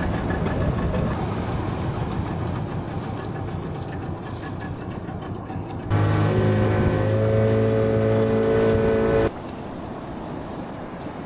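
Boat engine running, with wind and water noise; for about three seconds past the middle it is louder with a steady engine hum, starting and stopping abruptly.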